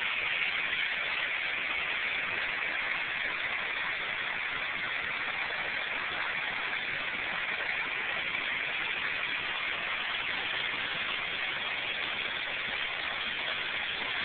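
Water rushing along a wooden mill flume and spilling into a mountain stream, a steady, even rush.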